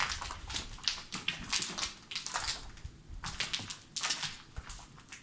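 Slow, irregular footsteps crunching over debris on the floor, a crunch about every second.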